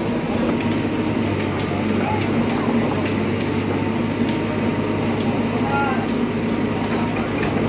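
Indistinct background voices over a steady noisy hum, with scattered sharp clicks.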